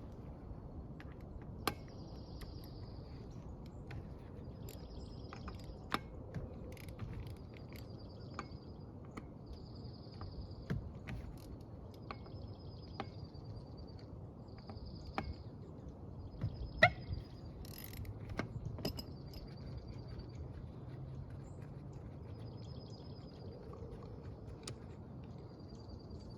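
Quiet outdoor background with a short, high buzzy animal call repeating about every second and a half. A few sharp metallic clicks of lug nuts and tools being handled stand out, the loudest about 17 seconds in.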